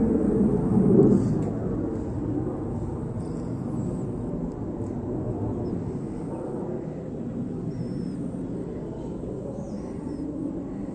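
Outdoor ambience: a low, steady rumble, louder and more uneven in the first second and a half, with a few faint high chirps.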